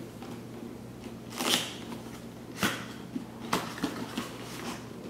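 A cardboard graphics-card retail box being handled and opened: three short rustling scrapes of cardboard sliding, the first and longest about a second and a half in, with a few light knocks between them.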